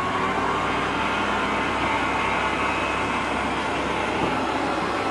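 Electric kitchen mixer running steadily at medium speed, kneading sourdough dough: an even motor whir with a faint whine.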